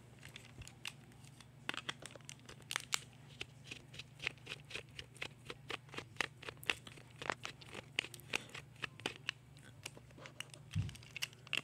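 Irregular light clicks, taps and rustling from hands handling small hard objects, several a second.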